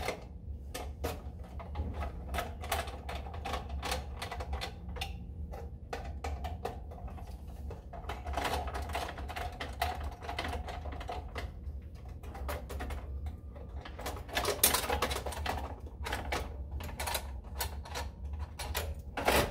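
Rapid small clicks and ticks of a hand screwdriver loosening the mounting screws on a Honeywell panel-mount controller's metal mounting clips, with bursts of metal scraping. A low steady hum runs underneath.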